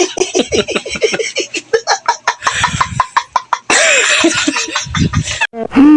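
Laughing sound effect: rapid bursts of laughter, several a second. Just before the end a steady held tone begins.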